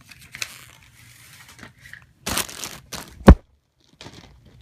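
Packaging crinkling and tearing in short rustles as BMX parts are unpacked. A single sharp knock a little after three seconds in is the loudest sound.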